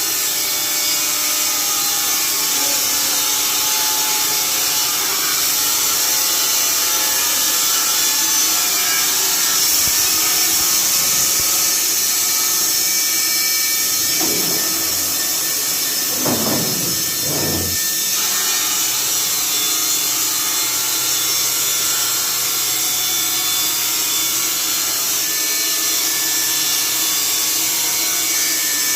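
Carpathian SMFA 100 horizontal band sawmill running, its band blade sawing a board off a fir log with a steady, loud hiss. About halfway through, a few brief whines dip in pitch and rise again.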